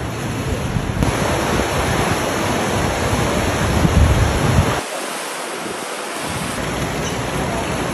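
Overflowing Misa river floodwater rushing through the streets, a loud steady rush, with wind buffeting the microphone; the low wind rumble cuts out abruptly about five seconds in and returns a second later.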